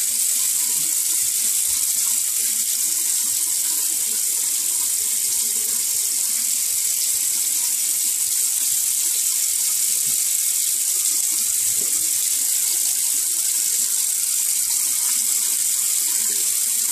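Water running steadily from a bathroom sink tap, a constant hiss.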